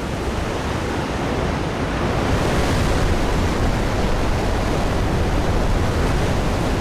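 Turbulent sea water churning and rushing, a steady noise of surf that grows louder over the first two seconds or so and then holds.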